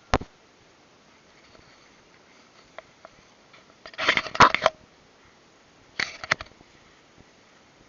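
Airsoft guns firing: a single sharp snap, then a rapid burst of several shots about four seconds in, and a shorter burst about two seconds later.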